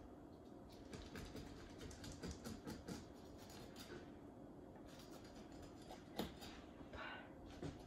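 Faint scratching and light clicks of a knife slitting open the belly of a whole rainbow trout on a metal tray, with one sharper tap a little after six seconds.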